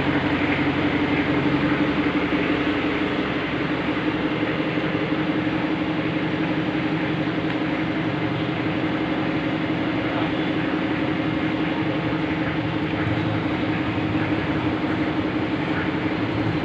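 Steady machine drone with a constant low hum, from machinery running in a workshop.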